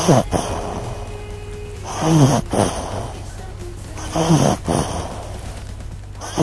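A small dog breathing right into a clip-on microphone held at its nose: three loud breaths with a wavering pitch, about two seconds apart.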